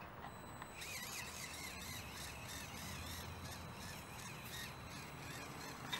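Birds chirping, with faint clicking and crunching that fits a 1/18 mini rock crawler, running a stock FMS FCX24 130 brushed motor, picking its way over stones.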